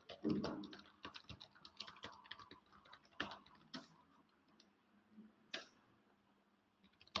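Computer keyboard typing: a quick run of faint keystrokes for about three seconds, then a few scattered key presses, with a louder knock just after the start.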